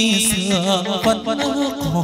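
Vietnamese chầu văn ritual music: a melody wavering in pitch over a plucked moon lute (đàn nguyệt), with sharp percussion strikes.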